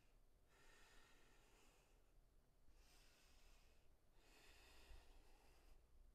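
Near silence with a woman's faint, slow breathing: three soft breaths, each lasting about a second, as she holds a yoga pose and lifts her leg.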